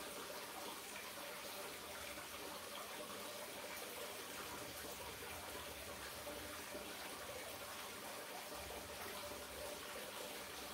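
Aquarium water circulating: a steady, unbroken trickle of running water from the tank's filter or aerator.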